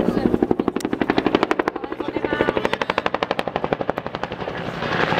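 Bell AH-1 Cobra's two-bladed main rotor making a fast, even blade slap of about ten beats a second as the helicopter passes close.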